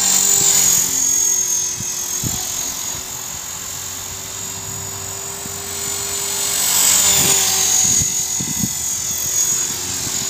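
Electric 450-size RC helicopter (EXI 450) in flight: a steady motor whine with the hum of its spinning rotors. It grows louder near the start and again about seven seconds in, with a few low thumps along the way.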